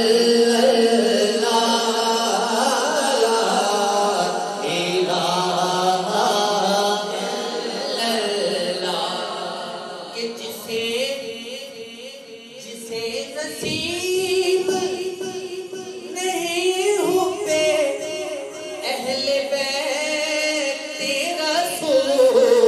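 A man singing a devotional kalam into a microphone, drawing out long ornamented notes, with a brief softer gap about halfway through.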